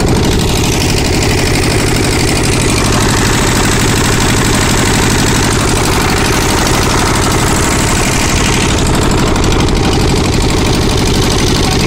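A wooden fishing boat's engine running steadily under way.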